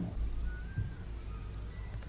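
Steady low background rumble, with a few faint, brief whistle-like tones over it.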